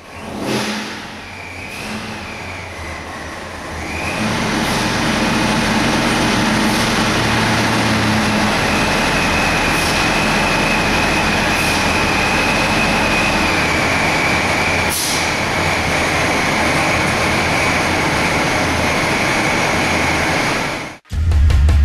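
Supercharged 540 cubic inch big-block Chevy race engine on an engine dyno. It is blipped, then brought up about four seconds in to a loud, steady high-rpm run under load with a steady high whine over it, and cuts off suddenly near the end.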